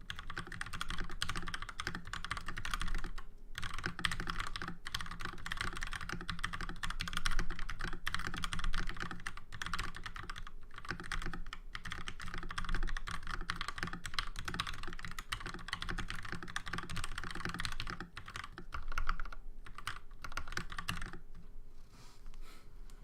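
Continuous typing on a mechanical keyboard with lubed Gateron Yellow linear switches and ABS doubleshot keycaps, in a case dampened with shelf liner: a dense, rapid stream of key strikes. The typing stops about 21 seconds in.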